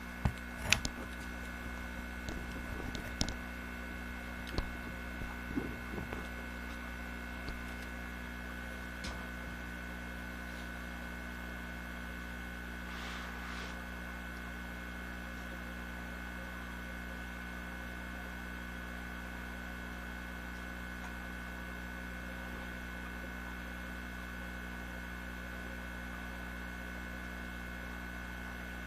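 Aquarium equipment humming steadily, with a few high tones above the low hum. A handful of sharp clicks and knocks sound in the first six seconds.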